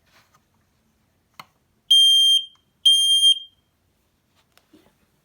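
First Alert 9120B ionization smoke alarm sounding on test: a click, then two loud, high-pitched beeps of about half a second each, about a second apart.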